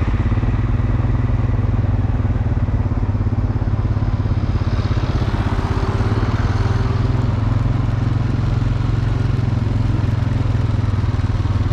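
Tractor engine running steadily under load, a constant low drone.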